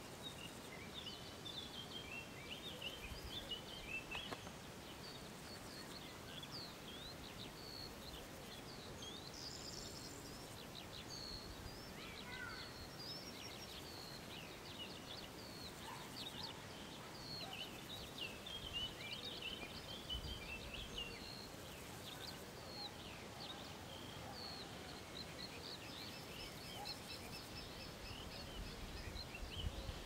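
Small birds chirping and calling with many short chirps and trills, over a steady low hum of outdoor background noise.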